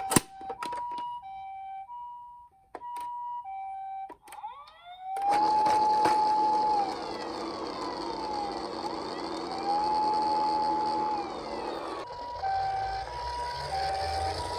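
Toy emergency vehicles' electronic sirens: a two-tone hi-lo siren alternating between two pitches, a few clicks, then a louder wailing siren that rises, holds and falls twice, and the two-tone hi-lo siren again near the end.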